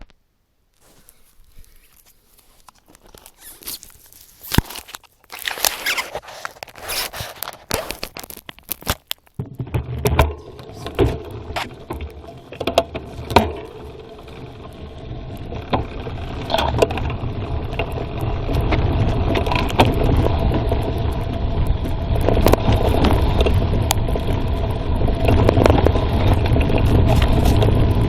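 Mountain bike ridden downhill on a forest trail, heard from a phone mounted on the bike: a few scattered clicks and knocks at first, then from about nine seconds in a continuous rumble of tyres and wind on the microphone, with rattles and clicks from the bike over it, growing louder as speed builds.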